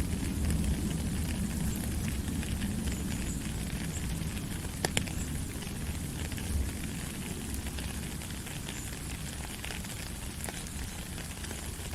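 Flowing water: a steady rushing with a deep rumble underneath, scattered small crackles and one sharp click about five seconds in.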